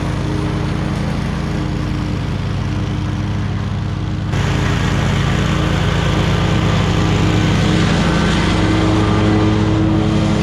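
Small petrol engine of lawn equipment running steadily, growing abruptly louder about four seconds in.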